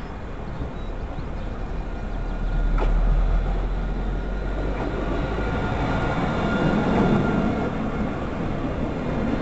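Alstom Citadis 302 light-rail tram pulling into the platform and slowing, a low rumble of wheels on rail with a whine of several steady tones that sets in about halfway through and grows as it passes close by. A single sharp click sounds about three seconds in.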